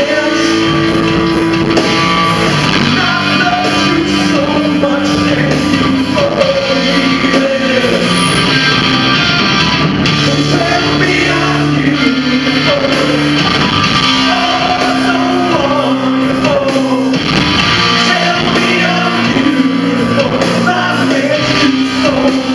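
Live rock band playing a song, a singer's voice over guitar and full band.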